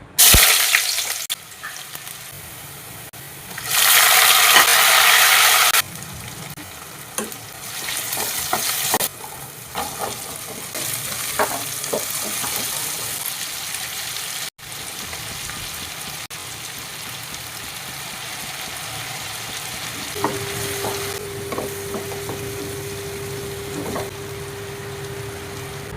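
Food-preparation sounds: a spoon stirring and mixing food, with light clinks of utensils against a bowl and, about four seconds in, a couple of seconds of steady hissing. A faint steady hum sets in near the end.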